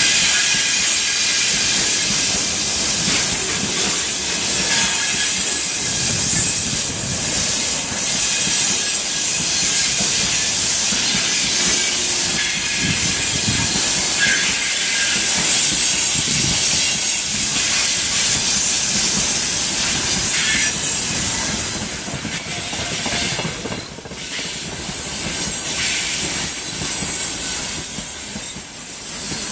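Loaded freight wagons, dump cars then open gondolas, rolling past close by: a steady loud rushing of steel wheels on rail. A thin high-pitched whine joins in about halfway through.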